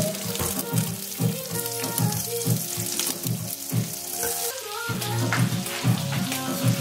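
Bacon strips sizzling in a frying pan, over background music with a regular beat.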